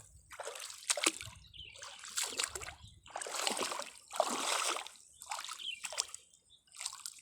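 Water splashing and sloshing in repeated bursts, roughly one a second, as the water is stirred or waded through.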